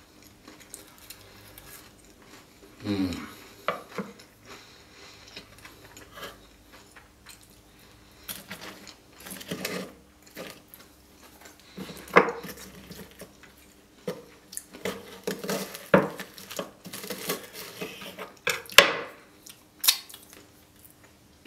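Metal fork clinking and scraping as it cuts through crispy Nutella-covered waffles on a wooden board, with close-miked chewing of the crunchy waffle. Irregular short clicks and scrapes, a few louder knocks toward the end.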